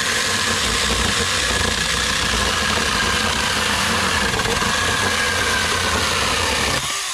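A 6-inch, 21-volt cordless mini electric chainsaw running flat out and cutting through a 2x4: a steady high motor whine over the rasp of the chain in the wood. Near the end the whine sags slightly and the saw begins to wind down as the cut finishes.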